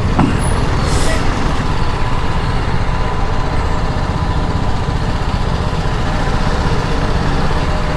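Steady riding noise on a moving motorcycle: wind rushing over the microphone mixed with the running of the BMW G 310 GS's single-cylinder engine.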